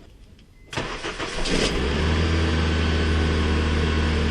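Honda Civic 1.8-litre four-cylinder engine, freshly installed, being started: after a brief pause the starter cranks for about a second, the engine catches, and it settles into a steady idle.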